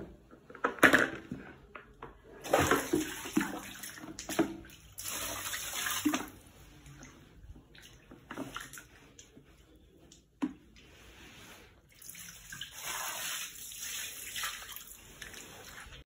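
Water sloshing and splashing in a plastic baby bathtub and being tipped out onto a tiled floor, in several separate bursts.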